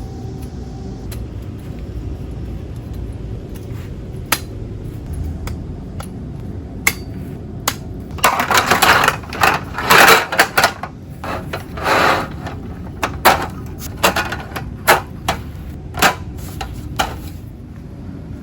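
Clatter and knocks of hard objects being handled: dense clattering bursts about halfway through, then a string of separate sharp knocks, over a steady low rumble.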